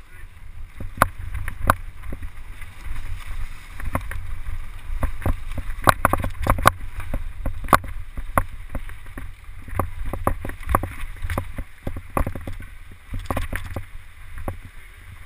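Mountain bike rattling down a dirt forest trail: irregular clicks and knocks from the bike jolting over bumps, over a steady low wind rumble on the camera's microphone.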